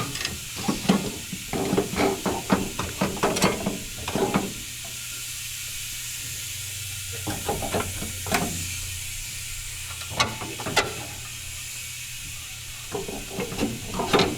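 Quick run of knocks and rattles for the first four seconds or so, then scattered single knocks, over a steady hiss: a loosened catalytic converter being wrestled free of the exhaust.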